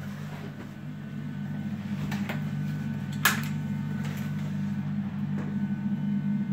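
Bathroom extractor fan humming steadily, getting a little louder about two seconds in, with one sharp click about three seconds in and a few faint knocks.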